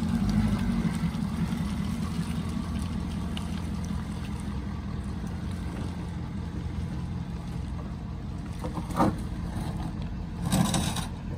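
The 6.7-litre Power Stroke V8 diesel of a 2014 Ford F-250 running at low revs as the truck crawls slowly through deep mud, gradually getting quieter as it moves away. A sharp knock about nine seconds in and a louder noisy burst shortly before the end.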